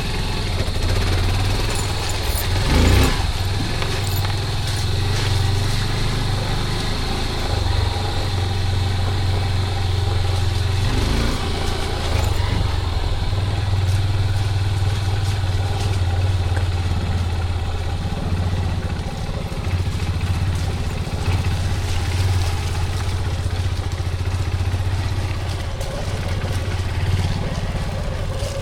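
Small motorcycle engine running steadily at low revs, with a couple of brief knocks about three and eleven seconds in.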